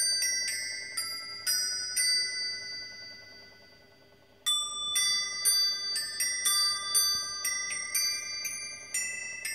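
A set of electronic Christmas bells, a string of small metal bells struck one after another, playing a carol tune note by note, each note ringing on. The tune rings out and fades about three seconds in, and the next tune starts up sharply about four and a half seconds in.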